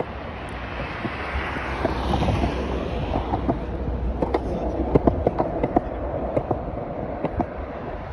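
Road traffic passing on a seafront road, with wind rumbling on the phone's microphone; the traffic swells in the first half, and scattered clicks come from the phone being handled.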